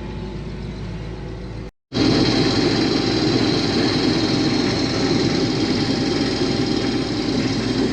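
Case IH combine running with a steady drone. About two seconds in the sound cuts out briefly, and then the machine comes back louder and denser, a steady heavy hum with a hiss over it.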